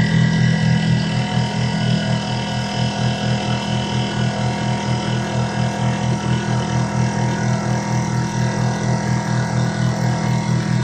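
CNC milling machine's end mill cutting an aluminium block under flood coolant: a steady machining whine with a regular pulse about four times a second.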